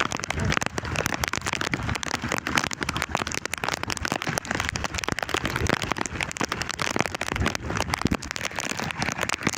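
Heavy rain falling, a dense, steady patter of drops.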